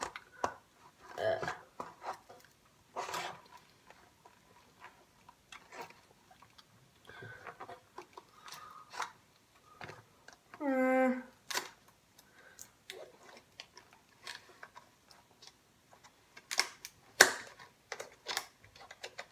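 Scissors snipping and clicking at stiff plastic blister packaging, with rustling and crackling as the pack is worked open. There is a brief hum of a boy's voice about eleven seconds in, and two louder snaps near the end.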